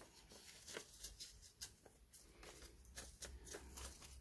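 Faint rustles and light ticks of a folded book page being handled by hand.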